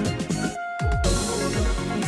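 Background electronic music with a sliding bass note repeating about twice a second. The bass cuts out briefly about half a second in.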